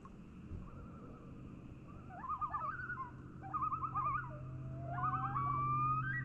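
Common loons calling across a lake: two bursts of rapid, wavering tremolo calls about two and three and a half seconds in, then longer held, rising notes near the end. A steady low hum runs underneath from a couple of seconds in.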